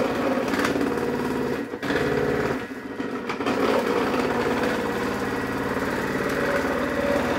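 Thermomix TM6 motor running steadily with its slicer attachment, cutting radishes, mushrooms and parsley root into thin slices.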